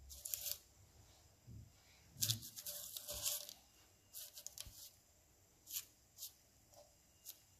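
Parchment paper rustling and crinkling in short bursts as half-baked shortcrust pastry braids are picked up and turned over by hand in a pan. The longest burst comes about two seconds in, with a few shorter ones after it.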